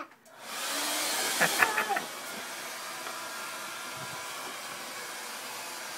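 A steady rushing hiss comes on about half a second in. It is loudest for its first second and a half, then holds level.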